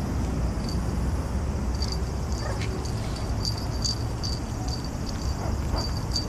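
Outdoor ambience: a steady low rumble with short, high-pitched chirps repeating irregularly, several to a second in the second half.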